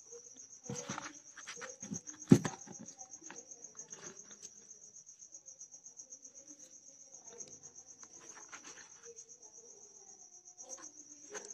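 A steady, finely pulsing high trill, typical of a cricket, runs throughout. Over it come scattered clicks and rustles of hands handling a small DC motor and twisting its wires onto battery leads, the loudest a sharp knock a little after two seconds in.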